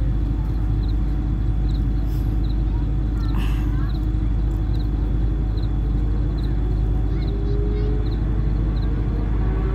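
Steady low outdoor background rumble that does not change, with faint, evenly spaced high ticks over it.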